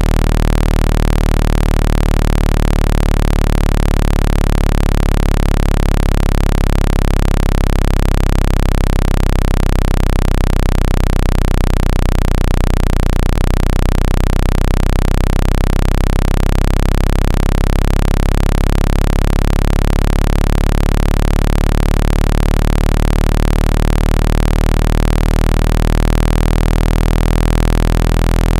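Water-eject tone for phone speakers: a loud, steady, low-pitched synthesized tone rich in overtones. It is played to shake water droplets out of a wet smartphone speaker.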